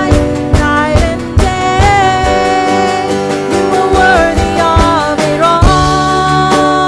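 Worship song performed with a band: a singer holding long notes and sliding between pitches over a steady beat of drum hits, with guitar in the accompaniment.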